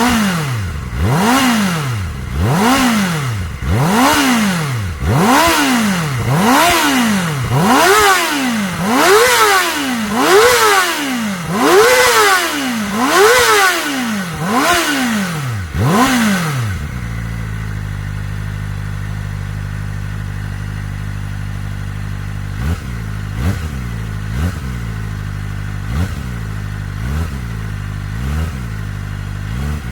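Kawasaki ZX-4RR's 399 cc inline-four engine being revved while standing still: about a dozen rev blips, roughly one every second and a half, each climbing a little higher than the last. About 17 seconds in it drops to a steady idle, broken by several short quick blips of the throttle near the end.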